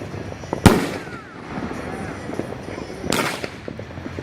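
A consumer fireworks cake firing its 2-inch shells: two loud booms about two and a half seconds apart, each ringing out, with small pops of crackle in between.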